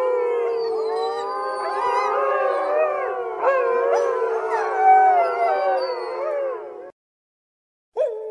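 A pack of wolves howling in chorus, many long howls overlapping and gliding up and down in pitch. It cuts off suddenly about seven seconds in; near the end a short steady tone starts sharply and fades.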